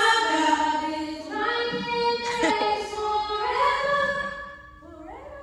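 A small group of women singing in harmony into microphones, holding long notes. The singing drops away near the end.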